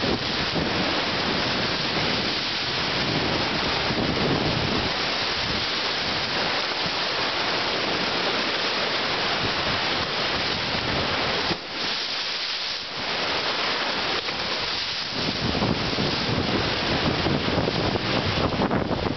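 Rushing white water of a stream pouring down a narrow stone channel: a steady, continuous rush of water noise.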